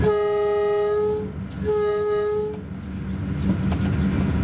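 Locomotive horn sounding two blasts of a single steady note, the first about a second long and the second a little shorter after a brief gap. It is the warning for the level crossing the train is running over. A low running rumble of the train continues underneath.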